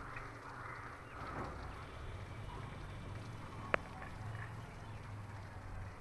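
Faint outdoor background noise with a low hum, broken by one sharp click a little past the middle.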